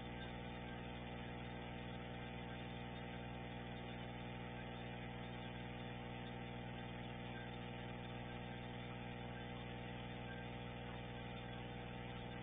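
Steady electrical hum, many even tones stacked together over a low hiss, unchanging throughout.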